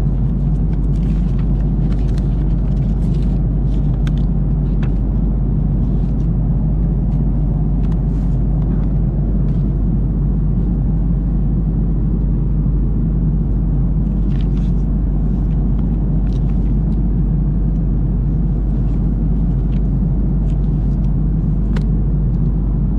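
Steady low drone of an Airbus A330-300's cabin in cruise flight, from the engines and the air rushing past the fuselage. Light paper rustles and ticks come over it now and then as leaflets and a magazine are handled.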